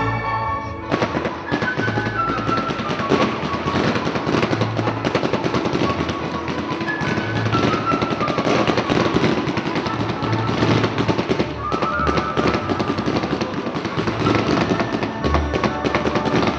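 Fireworks crackling and popping in quick, dense runs, starting about a second in, over music playing throughout.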